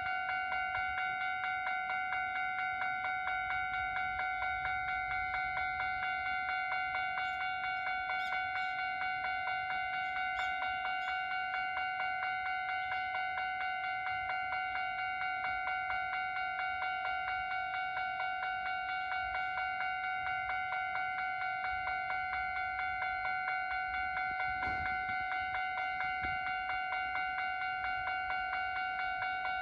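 Japanese railway level-crossing alarm ringing steadily, an electronic ding repeating at an even pace. A single sharp knock sounds about 25 seconds in.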